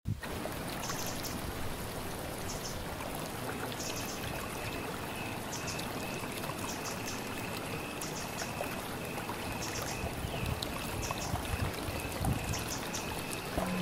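Steady rushing outdoor ambience that sounds like running water, with short clusters of very high chirps recurring every second or two and a thin steady high tone from about four seconds in.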